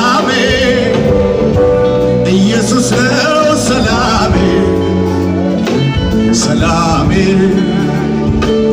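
Live worship band and singer performing an Ethiopian Protestant gospel song (mezmur), heard from the audience. The singing wavers with vibrato over held keyboard-like tones and a steady bass line.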